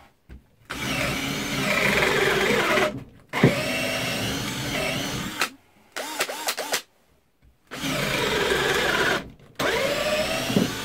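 Einhell TE-CD 18/40 cordless drill boring a 10 mm wood bit into a thick softwood beam, in several runs with short pauses and a few quick trigger blips near the middle. The motor's pitch dips and recovers as the bit loads up: the drill slowing under load, which the user puts down to a battery that is not fully charged.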